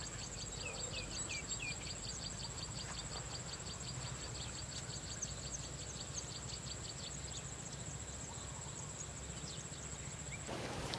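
Rural field ambience: insects keep up a steady high-pitched drone with a fast pulsing trill beneath it, while many short bird chirps come and go, thinning out after about seven seconds. Near the end it cuts off sharply into a broad rushing noise.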